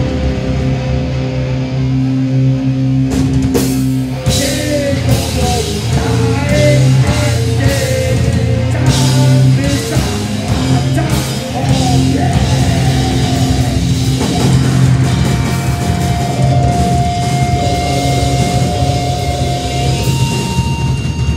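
Grindcore band playing live: heavily distorted electric guitar and bass over a drum kit, with vocals for a stretch in the middle. A single note is held near the end.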